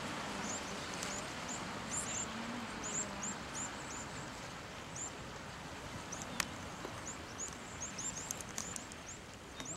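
Sea waves washing and breaking over shoreline rocks, a steady wash that eases slightly, with a run of thin, very high chirps repeated throughout and a few sharp clicks in the second half.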